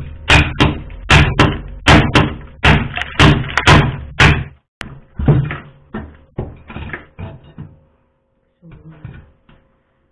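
Hammer chipping thick built-up ice loose inside a freezer: a quick run of sharp blows, about two or three a second, that thins out and grows softer after about four and a half seconds, with a few faint knocks near the end.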